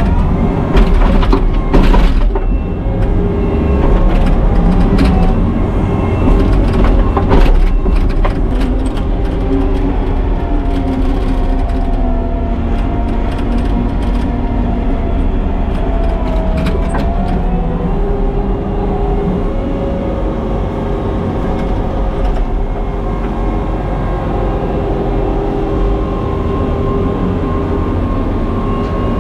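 Excavation machine's engine running under load, with a hydraulic whine that wavers in pitch. Knocks and scrapes of rock-laden dirt and stones come and go, most of them in the first half.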